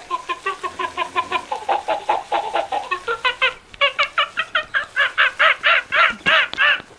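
Electronic monkey chatter from a plush toy monkey's sound chip: a fast string of pitched hoots, about five a second. After a short break midway it grows louder and higher, then cuts off suddenly near the end.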